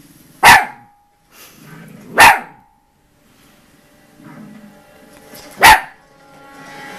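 Five-month-old Jack Russell–Chihuahua cross puppy giving three single short barks, the first two under two seconds apart and the third after a longer pause, barking at animals on the television. A quieter documentary soundtrack plays from the TV between the barks.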